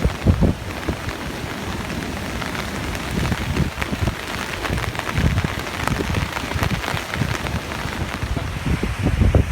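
Strong gusty wind ahead of an approaching typhoon, rushing steadily and buffeting the microphone with irregular low thumps.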